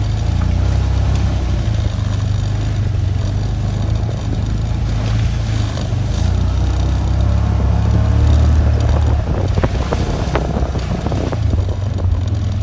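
Small off-road vehicle driving on a rough dirt trail: its engine runs as a steady low drone while loose body panels rattle, with a few sharper knocks about three-quarters of the way through.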